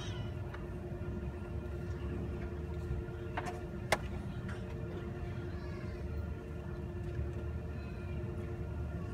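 Quiet auditorium room tone with a low rumble and a steady hum, broken by a single sharp click about four seconds in.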